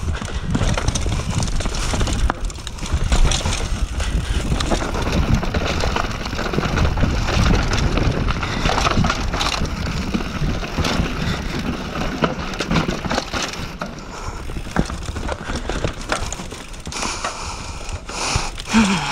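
Downhill mountain bike rattling over rocks and roots on a dirt trail: continuous tyre crunch with dense knocks and clatter from the bike, over a low rumble.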